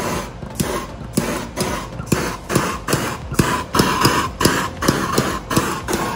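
Handheld gas torch flame hissing as it is swept back and forth over curing epoxy resin to pop a bubble near the surface. The hiss swells in repeated pulses that come faster and faster, from under two a second to about three.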